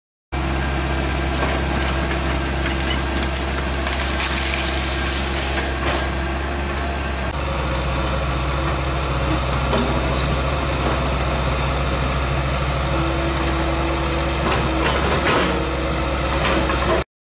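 John Deere crawler dozer's diesel engine running steadily as the blade pushes a pile of dirt, with a few sharp knocks along the way. The sound cuts off suddenly near the end.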